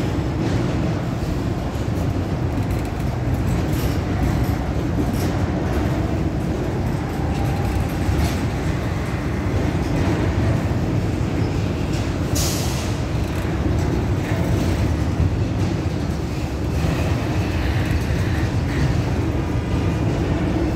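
Norfolk Southern freight train rolling past: a steady heavy rumble of wheels on rail, with a brief high hiss about twelve seconds in.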